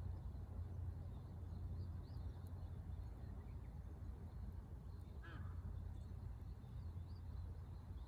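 Riverside bird ambience: faint high chirps of small birds throughout over a low steady rumble, with one louder bird call about five seconds in.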